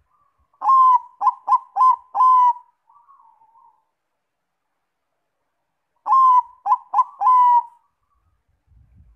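Zebra dove (Bangkok perkutut) cooing: two phrases of clear staccato coos, five notes then four, each phrase opening and closing on a longer note, with a soft murmur trailing after the first phrase.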